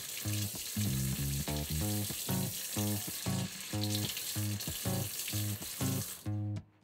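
Kitchen tap running into the sink while a squid body is rinsed under the stream; the water is shut off abruptly near the end. Background music with plucked notes plays throughout.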